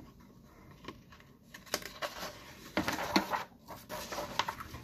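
Paper rustling as a printed sheet is lifted and turned over by hand, in a string of short crinkles and scrapes starting a little under two seconds in and loudest around the three-second mark.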